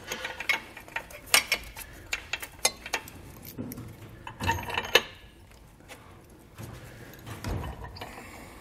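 Small steel hardware clicking and clinking as hooks, a carriage bolt and a flange nut are fitted by hand onto an air spring's lower bracket, with a busier patch of clinks about halfway through.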